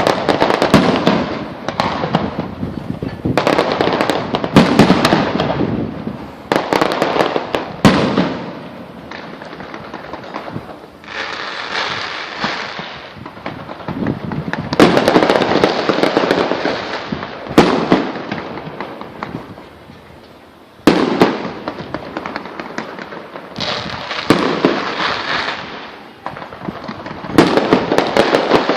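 Aerial fireworks display: shells bursting with sharp bangs and long crackling rattles, in clusters every few seconds, echoing between buildings.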